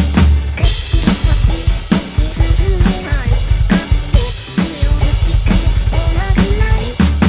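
Upbeat pop song with a busy drum kit of kick, snare and rimshots under a sung melody that glides up and down.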